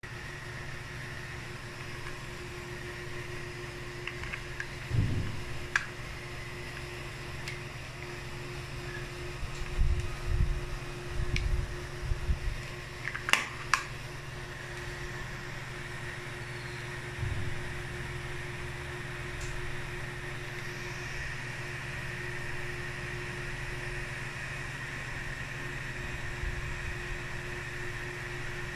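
3D printer's cooling fan running steadily, with a constant hum. Scattered clicks and knocks of a small plastic box being handled come through it, clustered in the first half.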